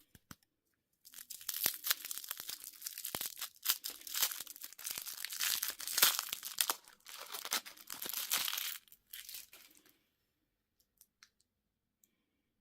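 Crinkly plastic candy packaging being torn open and crumpled by hand, a dense rustling and tearing that starts about a second in and stops after about nine seconds, followed by a few faint clicks.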